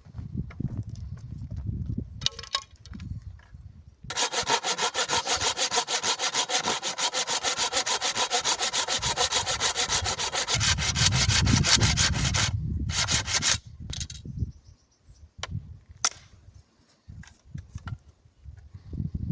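Wood being sawn by hand in fast, even strokes for about eight seconds, starting about four seconds in, followed by a short second burst of strokes.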